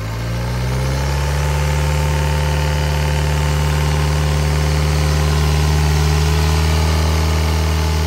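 Isuzu 4KH1 four-cylinder turbodiesel running bare on a test stand. It is revved up over about the first second by hand at the throttle, then held at a steady raised speed.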